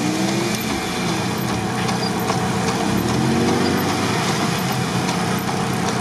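Lifted Toyota 4Runner on large mud tyres revving its engine as it pushes through mud toward a steep bank. The engine climbs in pitch twice, once right at the start and again about three seconds in.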